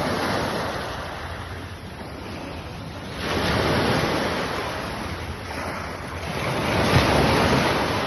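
Black Sea surf breaking on the shore in swelling waves. One surges in abruptly about three seconds in, and another builds and peaks near the end, with wind buffeting the microphone.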